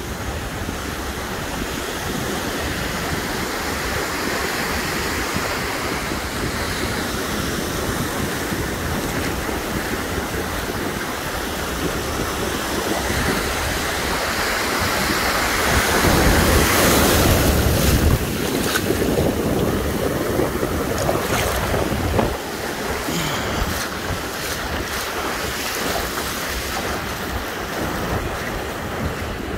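Ocean surf washing up onto a sandy beach, with wind buffeting the microphone. It gets louder for a couple of seconds just past the middle.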